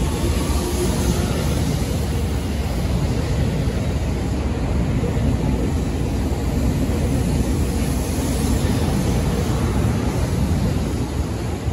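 Seibu 30000 series electric train moving past the platform, its cars rumbling steadily on the rails close by. The rumble eases a little near the end as the last car goes by.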